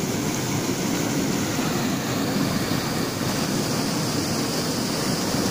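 Fast-flowing river water rushing and churning, a steady unbroken noise.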